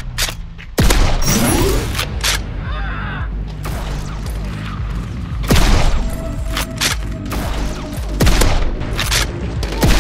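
Foam blaster shots and hits, about a dozen sharp cracks scattered through, over background music with a steady low beat.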